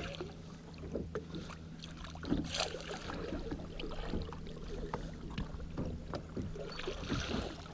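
Baitcasting reel cranked hard against a hooked musky, with scattered clicks and knocks of rod and gear against the boat and brief splashy hisses of water, over a steady low hum.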